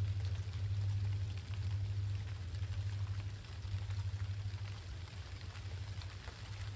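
Rain pattering and dripping, with scattered ticks of drops over a steady low rumble from EMD GP60 diesel locomotives on the approaching train.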